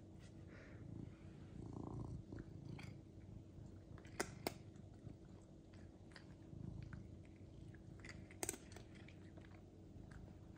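Domestic cat purring softly, a low steady rumble, with a few short sharp clicks: two close together about four seconds in and one more later.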